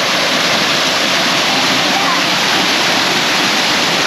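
Waterfall pouring steadily: a loud, even rush of falling water with no breaks.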